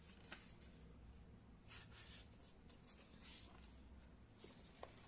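Faint rustling of paper textbook pages being handled and moved, a few soft swishes over near silence.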